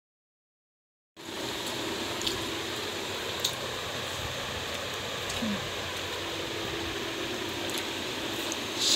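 Silence for about the first second, then a steady even hiss of room noise with a few faint, light clicks as food is eaten by hand from steel plates.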